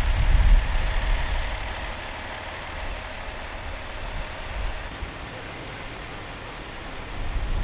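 Steady running of a vehicle engine, with low gusts of wind buffeting the microphone in the first second or so and again near the end.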